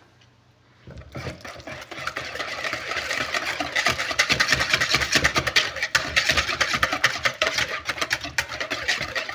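Wire whisk beating a wet batter in a plastic mixing bowl: rapid, steady strokes of the wires clicking against the bowl and slapping through the liquid, starting about a second in.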